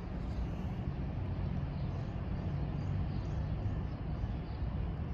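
Steady outdoor background noise, mostly a low rumble, with no single clear source standing out.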